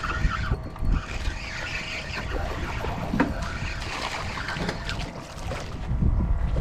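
Wind buffeting the microphone on an open fishing skiff: a steady low rumble with a few faint small knocks.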